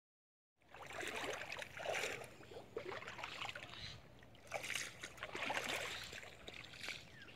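Bare feet wading through shallow water on a flooded path, a splash and slosh with each step, starting about half a second in.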